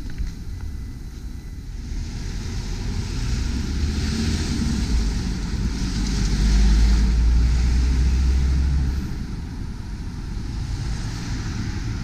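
Road traffic passing: tyre hiss and engine noise from cars going by, with a louder low rumble from about six to nine seconds in.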